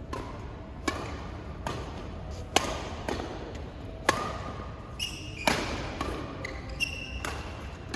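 Badminton rally: rackets striking the shuttlecock in sharp, irregular cracks roughly once a second, with a few short squeaks of shoes on the court floor about five and seven seconds in.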